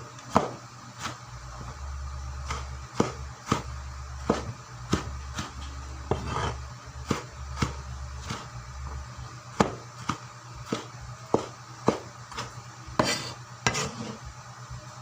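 Knife chopping on a cutting board: a steady run of sharp knocks, about two a second.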